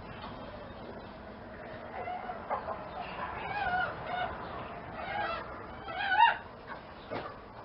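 A series of short animal calls with wavering pitch, beginning about two seconds in; the loudest comes about six seconds in.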